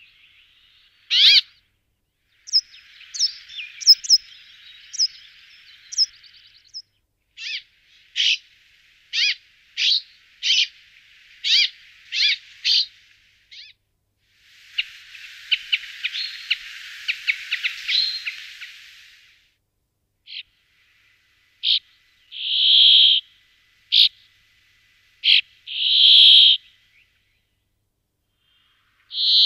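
Brambling calls: a run of short, separate call notes, two stretches of denser overlapping chatter, and a few longer drawn-out notes in the last third.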